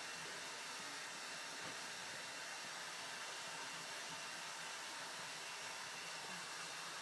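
A steady, even hiss of background noise with no distinct sounds in it.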